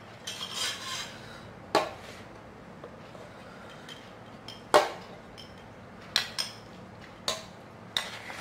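Plates and bowls being handled and set down, with spoons clinking against them: a handful of separate sharp clinks and knocks, the loudest about five seconds in.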